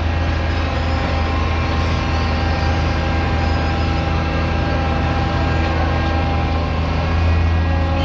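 A heavy engine running steadily: a constant low drone with steady overtones that does not change.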